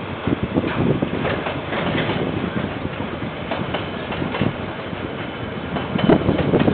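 Freight train of container wagons rolling past, a steady rumble of wheels on rail with irregular clattering knocks from the wheels and couplings, growing louder near the end. Picked up by a security camera's microphone, so the sound is thin, with no high end.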